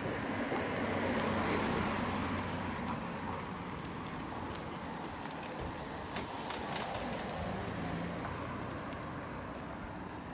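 Motor vehicle noise: a steady engine hum with road traffic, swelling to its loudest about a second or two in and then settling.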